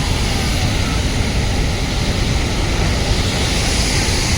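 Waterfall roaring steadily: loud, even rushing-water noise with a deep rumble.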